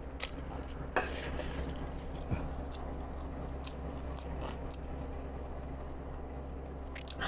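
Close-miked chewing with small wet mouth clicks, and two sharp taps of a stick against a glass mug near the start and about a second in, over a steady low hum.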